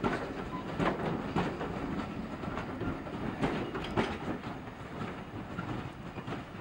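Railway passenger coaches rolling past, their wheels clicking over the rail joints over a steady rumble, fading as the last coach draws away.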